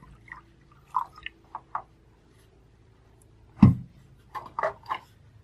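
Water being poured from a bottle into a bowl: scattered drips and glugs, with a sharp knock about three and a half seconds in, then a few more splashes.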